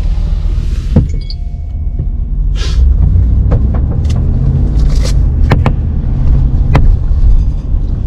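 A car driving, heard from inside the cabin: a steady low engine and road rumble, with scattered sharp clicks and knocks and a couple of short hisses.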